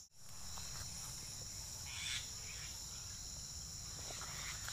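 Steady high-pitched insect chorus, with a faint low rumble underneath. The sound drops out briefly at the very start, and a short faint sound rises over it about two seconds in.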